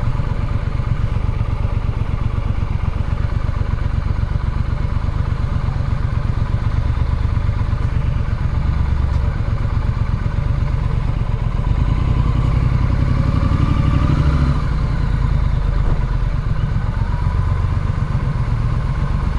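Triumph Street Scrambler's 900cc parallel-twin engine running steadily at low road speed, with the revs rising briefly about twelve seconds in.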